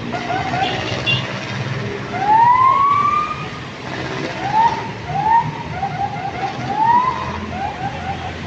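Police car siren sounding in rising whoops: one long rising wail about two seconds in, then a quick run of short rising chirps, and another long rise at the end, over the rumble of street traffic.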